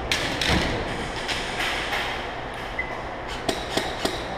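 Steady rumbling background noise with a low thump about half a second in and a few short sharp clicks near the end.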